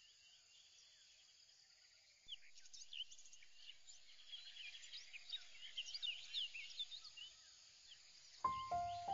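Faint chorus of birds chirping, many short rising and falling calls, starting about two seconds in. Near the end a few held notes of background music begin.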